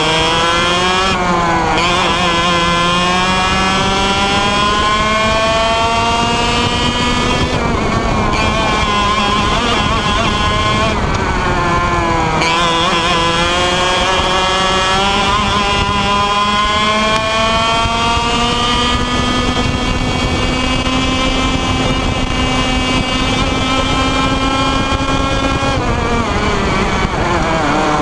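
IAME Leopard 125cc two-stroke kart engine at race pace, heard onboard: its pitch climbs steadily along each straight, then drops sharply each time the throttle comes off for a corner, several times.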